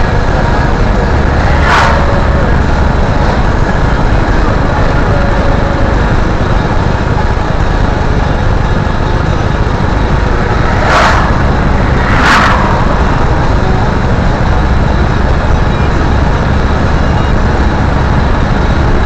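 Steady road and engine noise inside a moving car's cabin, with a short swish three times as oncoming vehicles pass.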